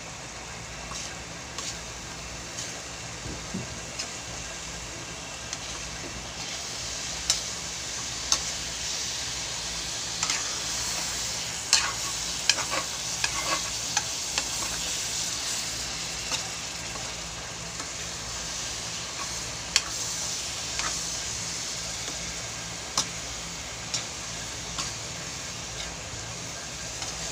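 Sinantulan, santol simmered in coconut milk, sizzling steadily in the pan as the coconut milk cooks down and its oil separates out. A utensil stirring it clicks and scrapes against the pan now and then, most often in the middle stretch.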